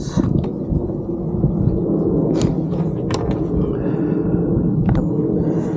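Low rumbling noise with a few sharp knocks, picked up by a camera mounted on the handlebars of an electric dirt bike as it rolls slowly over a grass lawn.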